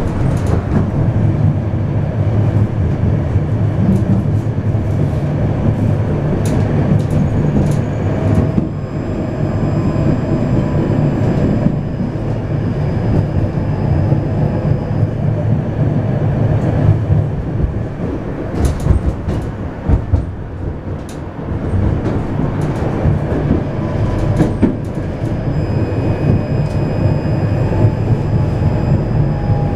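Moving Vityaz low-floor tram heard from inside the passenger car: a steady running rumble from the wheels and traction drive, with scattered clicks and knocks as the wheels pass rail joints, and thin, faint electric whines from the drive.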